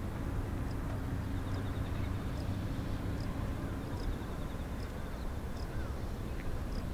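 Distant jet engine rumble from a Boeing 777-200 climbing out after takeoff, steady and low. Faint high chirps repeat about once or twice a second above it, with a rapid ticking trill at times.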